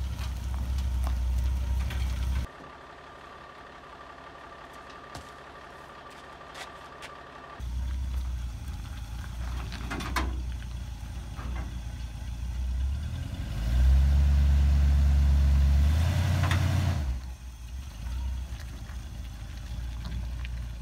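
Square-body Chevrolet pickup's engine running at low revs, swelling louder for about three seconds past the middle as the truck drives onto a barge's ramp, then settling back. Near the start a quieter stretch of about five seconds carries a steady higher tone instead of the engine.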